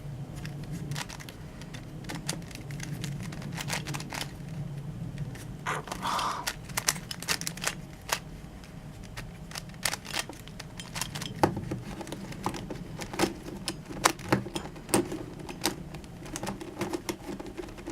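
DaYan Megaminx twisty puzzle being turned by hand: irregular plastic clicking and clacking as its faces are rotated, several clicks a second, over a steady low hum.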